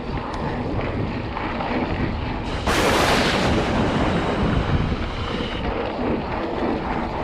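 Steady wind buffeting on the microphone and tyre rumble from a mountain bike riding along a canal towpath, with a louder rush of noise lasting under a second about three seconds in.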